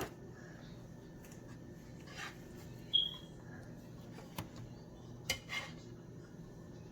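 A utensil scraping and tapping in a baking dish, a few short scrapes and clicks with one brief squeak, as meat, peppers and onions are spread over a layer of lasagna noodles.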